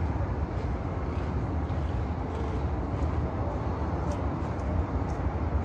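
Steady low outdoor background rumble, with a few faint high clicks.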